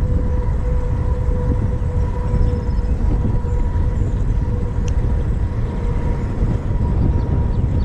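Wind buffeting the microphone of a camera on a moving bicycle, with tyre and road noise from the asphalt trail: a loud, steady low rumble with a faint steady high tone over it.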